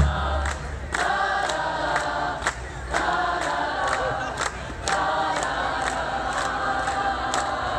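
Street marching band playing held chords over a steady drum beat of about three strokes a second. The low bass line drops out about half a second in, and the chords break off briefly a few times.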